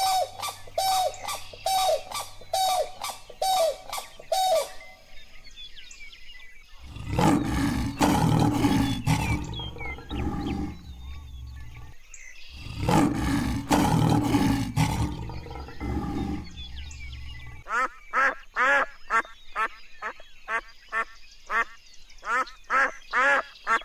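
A bird's short calls repeated evenly about twice a second, then lions growling in two long, deep, rumbling bouts, then a ruddy shelduck honking rapidly, about three calls a second.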